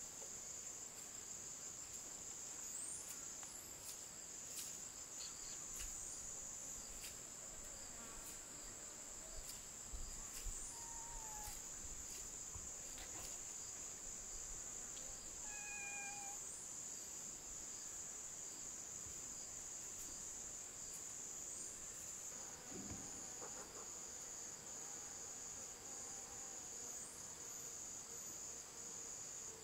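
A steady, high-pitched insect chorus drones without a break. Scattered light clicks and scrapes come from a machete blade peeling taro.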